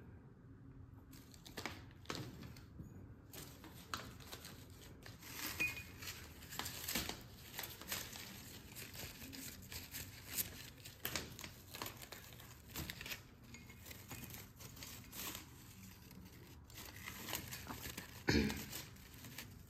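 Rustling and crinkling of artificial roses' fabric petals and plastic leaves as the stems are handled and pushed into a porcelain vase, with scattered small clicks and taps. A sharper knock near the end, as the stems go into the vase.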